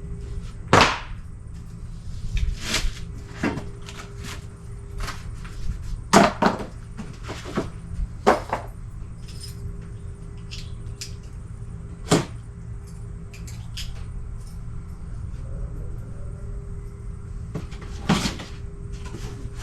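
Unpacking sounds: irregular knocks, thuds and clicks as parts are handled and taken out of a cardboard box, over a steady low background hum.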